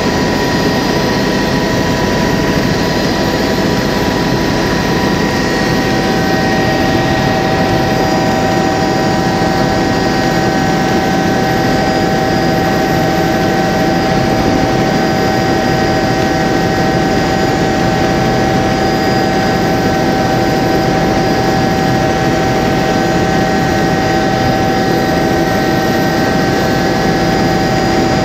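Helicopter engine and rotor noise heard from inside the cabin in flight: a loud, steady drone with a constant high whine over it.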